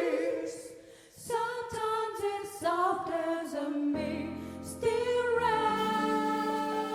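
Gospel vocal group singing in close harmony. A held chord dies away about a second in, then the voices come back with a new phrase. Steady held notes come in under them about four seconds in.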